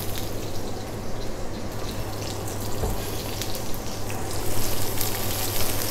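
Sliced onion sizzling in hot vegetable oil in a steel wok, just tipped into the preheated pan, the crackle growing busier near the end. A steady low hum runs underneath.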